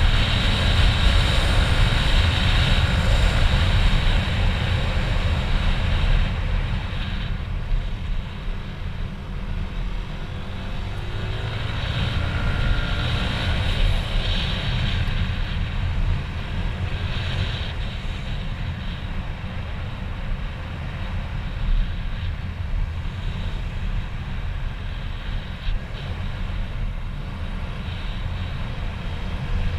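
Motorcycle on the move: engine running with a heavy, continuous low rumble of wind and road. It is loudest in the first few seconds, then a little lower and steady.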